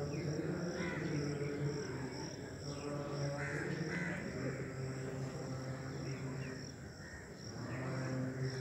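Insects chirring in a steady, pulsing high note, with crows cawing several times. A low, steady drone runs underneath.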